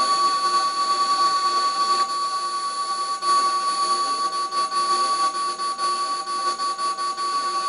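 Steady electronic whine from an amplified guitar effects pedal setup: several high tones held over a hiss. Small crackles and clicks come in over its second half as the cables and power strip are handled.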